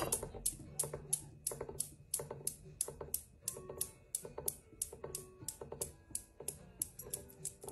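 Newton's cradle steel balls clicking against each other in a steady rhythm, about four clicks a second, with a faint metallic ring.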